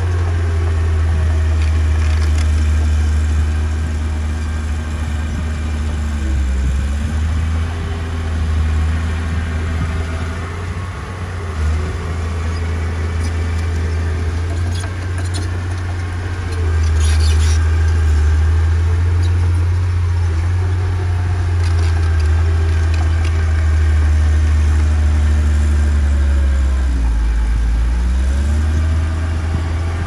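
Diesel engine of heavy earthmoving machinery running with a deep, steady rumble. Its pitch sags briefly about six seconds in and again near the end, then recovers.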